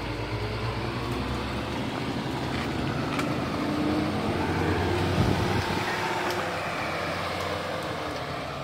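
Truck crane's engine running steadily under load, driving the hoist as it lifts the wrecked car, a little louder about halfway through.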